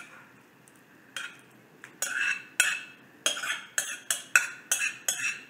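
Metal spoon knocking and scraping against a ceramic bowl as thick meat sauce is worked out of it: one sharp clink about a second in, then a quick run of about ten clinks, roughly three a second.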